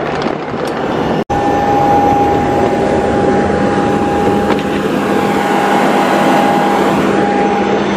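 Steady whine and rush of a Ryanair Boeing 737's tail-mounted auxiliary power unit running on the apron. Two steady tones hold over the noise, with a momentary break about a second in.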